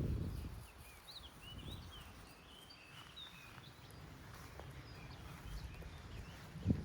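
Small birds twittering in quick high chirps over a faint low outdoor rumble. A loud low noise fades out at the start, and there is a single knock near the end.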